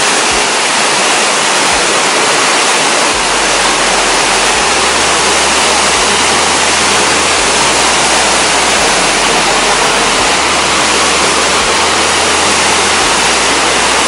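Loud, steady rush of a waterfall and the fast river below it: an unbroken roar of falling water.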